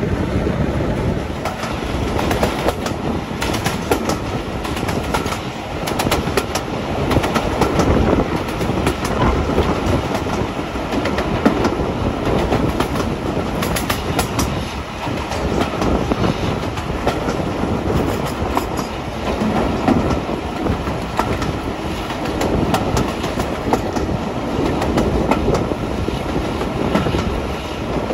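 Passenger train hauled by a Class 52 'Western' diesel-hydraulic locomotive running at speed, heard from an open window of the leading coach. Continuous rail running noise, with the wheels clicking over the track again and again.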